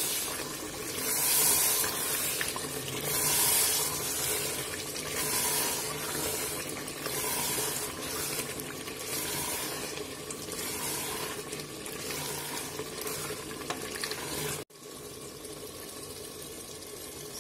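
Water sloshing in rhythmic strokes roughly every two seconds over a steady low hum. An abrupt cut near the end leaves a quieter, even wash.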